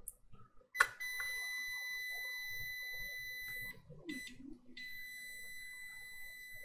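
Digital multimeter's continuity beeper sounding a steady high beep while its probes are held on a laptop motherboard power rail. The beep comes in about a second in, just after a sharp click, drops out for about a second midway and then resumes. It signals the low resistance the meter reads on the line, around 16 ohms.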